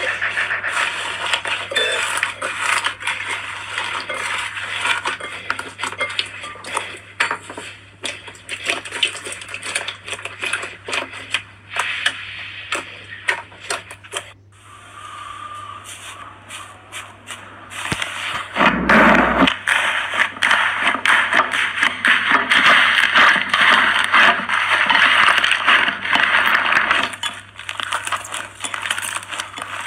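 Slime being squeezed and pressed by hand, a dense run of small crackles and pops. It goes quieter for a few seconds around the middle, then a low thump and the crackling picks up again, louder.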